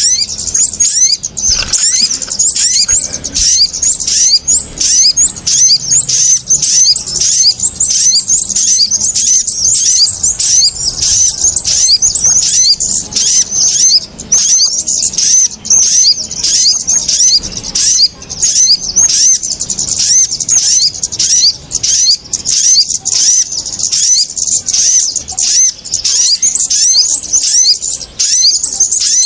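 Bird-lure recording of small birds, kemade and sogon, calling noisily: a dense, continuous run of quick, high chirps, several per second, with no pause.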